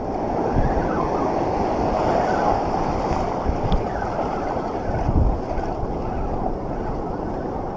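Ocean surf washing through the shallows, a steady rush of foaming water, with wind on the microphone.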